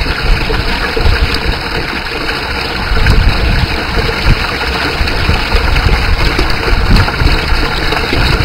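Water jets from small pipes through a scale-model dam, and water spilling over its model spillway, splashing steadily into the water of a clear tank below, as a continuous rushing and splashing noise with a heavy low rumble.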